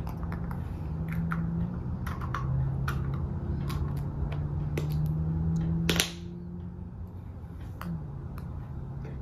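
Light clicks and crinkles of small foil-wrapped Easter eggs being handled and set down on a rug, with one louder click about six seconds in, over a low steady hum.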